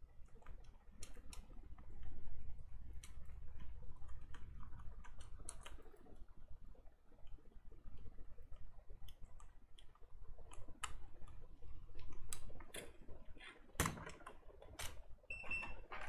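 Scattered light clicks and rustles of a PC power-supply circuit board being handled, as a power transistor's leads are fitted back into it. Near the end comes a louder knock, then a short high beep.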